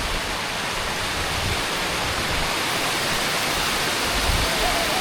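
Waterfall pouring steadily: an even, unbroken hiss of falling water.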